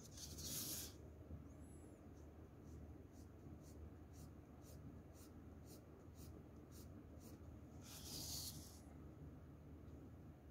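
Faint scratching of a shading pencil on paper. Two longer strokes come near the start and about eight seconds in, with a run of short, quick strokes, about three a second, in between.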